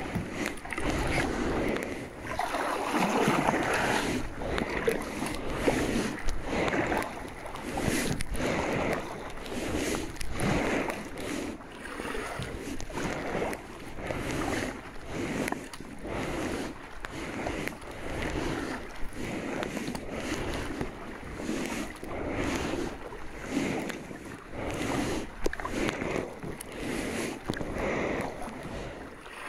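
Kayak paddle strokes splashing, with water swishing along the hull, in an even rhythm of about one stroke a second.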